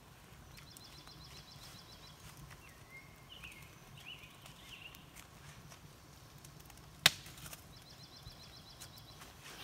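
Small birds calling: a quick high trill twice, with a few chirps between. About seven seconds in, a single sharp wooden knock as a split log is dropped into the steel fire ring.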